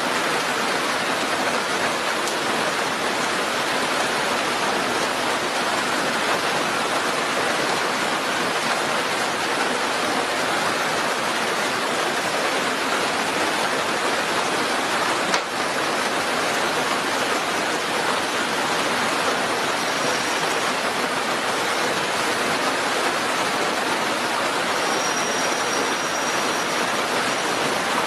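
Heavy rain falling steadily as a dense, even hiss, with one sharp click about halfway through.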